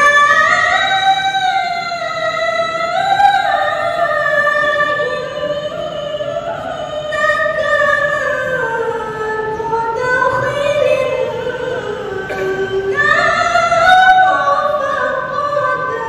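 Singing in high voices: a slow melody of long held notes that glide from one pitch to the next.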